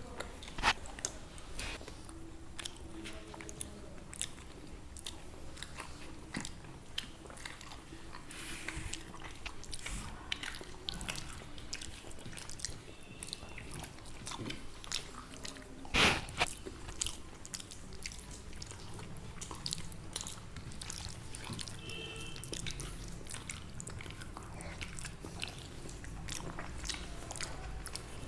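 Close-up chewing and biting of crunchy food, with many small crisp crunches. There is a sharper, louder bite just after the start and a louder one about halfway through.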